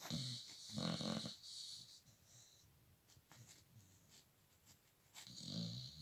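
A sleeping dog snoring: two snoring breaths, one at the start and one near the end, each a low snore with a high hiss over it.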